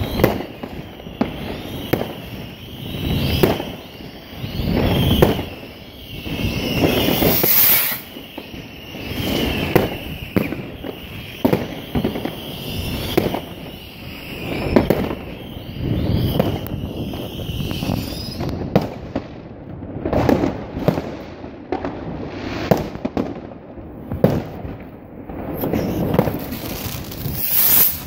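Fireworks going off in the sky: a continuous run of overlapping bangs and crackles that swells and fades in waves every second or two.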